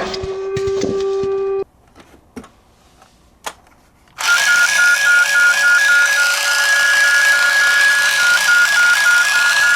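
Electronic two-tone ambulance siren alternating evenly between a high and a slightly lower note, starting suddenly about four seconds in. Before it, a steady electronic tone cuts off after a second and a half, followed by a few faint clicks.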